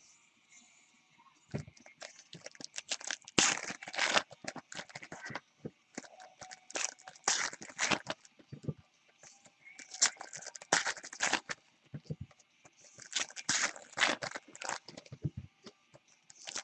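Foil trading-card pack wrappers being torn open and crinkled by hand, in several bursts of crackling with short pauses between.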